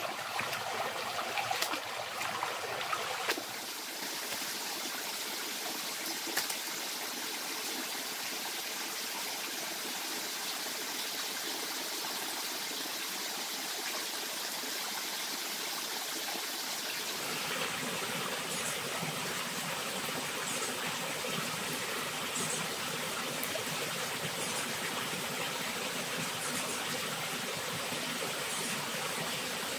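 Water splashing as hands move in a shallow, rocky forest stream during the first few seconds, then the steady rush of running water. The rushing grows fuller and deeper about halfway through, with a few faint ticks.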